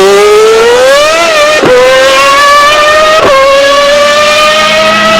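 Ferrari 412 T2 Formula 1 car's V12 engine accelerating hard at high revs, its pitch climbing steadily, with two quick upshifts about one and a half seconds apart where the pitch drops sharply and climbs again.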